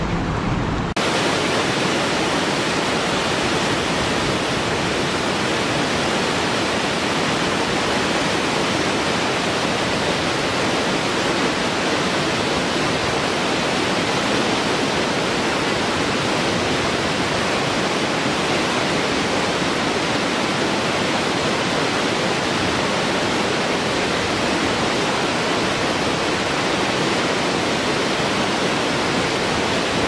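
Waterfall rushing: a steady, even noise of falling water. About a second in it changes abruptly, losing its deeper rumble, then holds steady.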